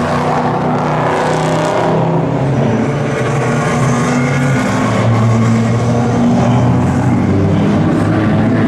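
Racing cars accelerating hard past one after another, their engines loud and continuous, the pitch sliding as each car goes by.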